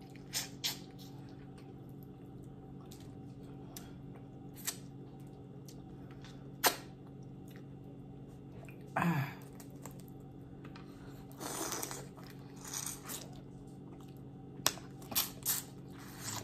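Close-miked eating of boiled crawfish: scattered clicks and cracks of shells, short wet squishes and chewing, over a steady low hum. The sharpest crack comes about six seconds in, and a short throaty mouth sound about nine seconds in.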